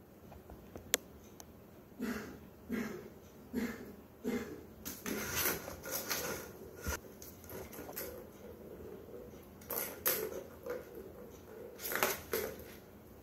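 Plastic balls rattling and rolling around the tracks of a tower-of-tracks cat toy as a kitten bats at them, in a string of short clattering bursts that starts about two seconds in and stops near the end.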